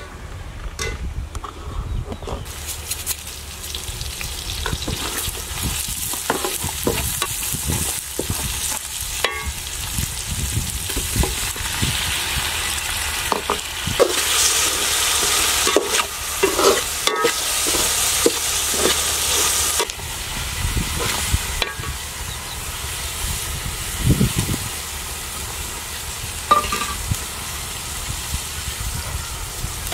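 Tomatoes, shallots and whole spices sizzling in oil in a metal pan over a wood fire, stirred with a spatula that scrapes and knocks against the pan. The sizzle starts about two seconds in and grows loudest around the middle.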